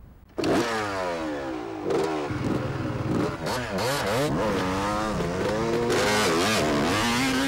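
Dirt bike engines revving up and down over and over, their pitch rising and falling. The sound starts abruptly about half a second in.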